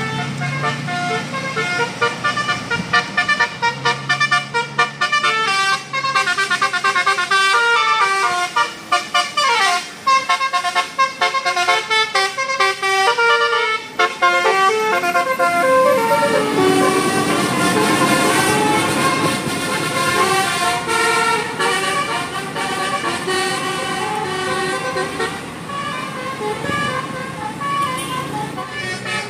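Bus telolet horns of the Basuri multi-tone air-horn type playing quick tunes, note after note in rapid steps, with a falling pitch sweep about nine seconds in. In the second half a different tune plays over a steady noisy background.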